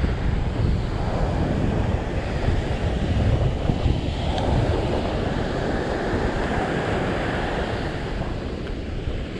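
Wind buffeting the microphone over the steady wash of surf on a beach.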